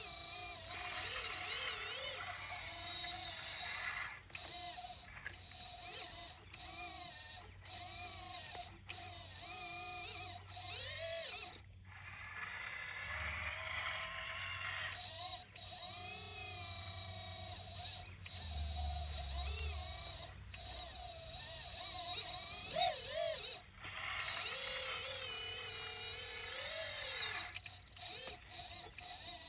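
Electric whine of a 1/14-scale hydraulic RC excavator's pump and motor, pitch wavering up and down as the hydraulics take load, with several abrupt cuts.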